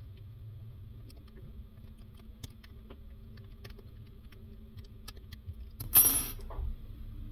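Faint, scattered clicks of small metal and plastic faucet parts being handled, then a sharp metallic clatter about six seconds in, with a smaller one just after.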